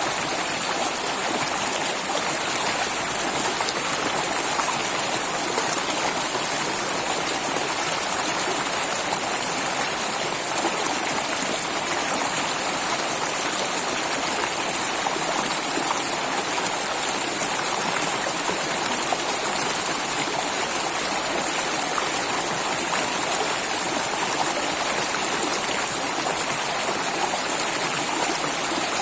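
Flowing water, a steady, unbroken rush of a stream or small cascade.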